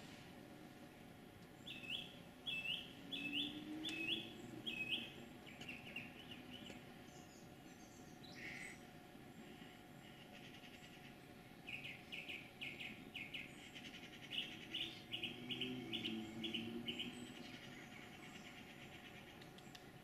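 A small songbird calling, repeating a short high note: a run of about five evenly spaced notes, then after a pause a longer, quicker run of many notes.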